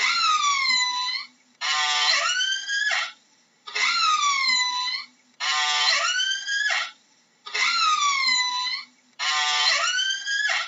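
Orca (killer whale) calls: a call that falls in pitch and turns up slightly at the end, then one that rises, each about a second and a half long with short silent gaps between. The same pair repeats evenly, three times over.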